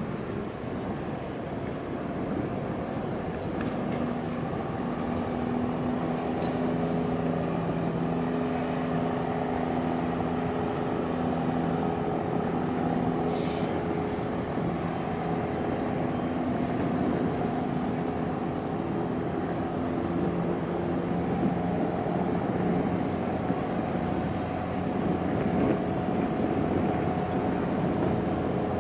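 A boat's diesel engine running steadily, a low drone with several steady tones that fade for a few seconds midway and then return, under wind noise on the microphone.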